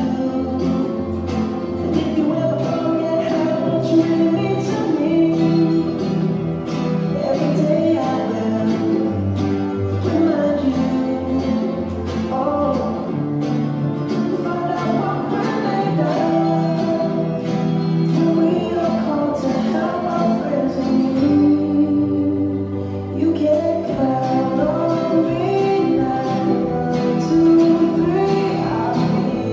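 Three acoustic guitars strummed together in a live performance of a song, with singing over them.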